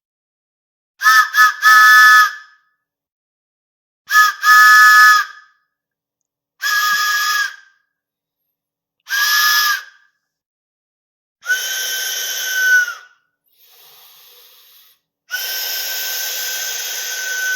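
A series of cartoon train steam-whistle sound effects: short toots, some chord-toned and some single-pitched, the first a triple toot about a second in, then a double toot. The later whistles carry a steam hiss, with a short faint hiss alone, and the last is a long held whistle over hissing steam.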